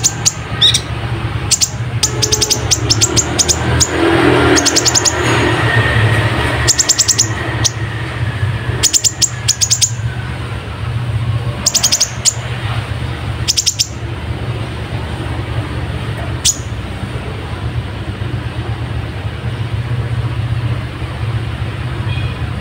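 Kolibri ninja sunbird singing in quick runs of high, rapidly repeated chirps, a gacor song filled with mimicked sparrow calls. The runs come in short bursts with pauses and thin out after about two-thirds of the way through. A steady low hum runs underneath.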